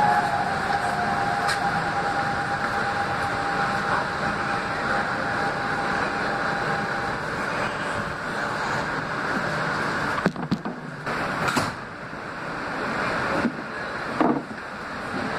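R160B Siemens subway car running on the rails, a steady rumble and hiss of wheels on track. A thin traction-motor whine glides down in pitch in the first second, then holds steady until about seven seconds in. Near the end the sound drops and jumps abruptly several times.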